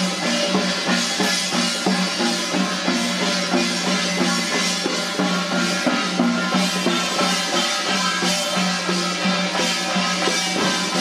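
Procession troupe music: small hand-held frame drums beaten with sticks in a steady rhythm over a sustained melody.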